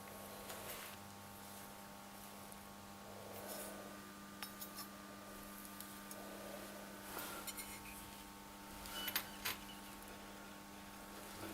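Faint steady hum with a few scattered light clicks and taps of parts being handled, the loudest two about nine seconds in.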